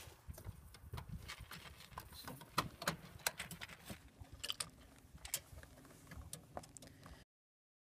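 Irregular small clicks, taps and scrapes of hand work on a heat pump outdoor unit's terminal block and access panel: a screwdriver on the terminal screws and wires being handled, with rustling against the phone's microphone. The sound cuts off abruptly near the end.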